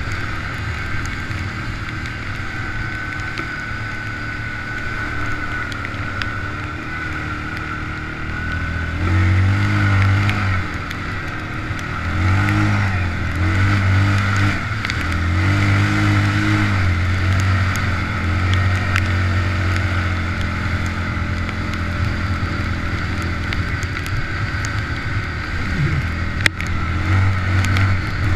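Quad bike (ATV) engine running under a rider on a muddy track, heard from on board, with the throttle opened up in several surges of a few seconds each around the middle and again near the end. A steady high whine runs under it.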